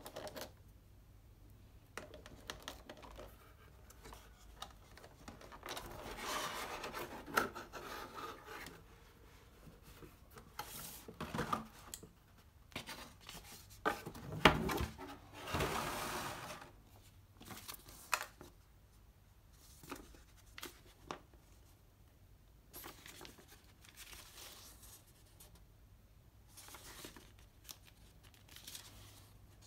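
Paper instruction manual and leaflets rustling as they are handled and unfolded, in irregular bursts with scrapes and clicks and one sharp knock about fourteen seconds in.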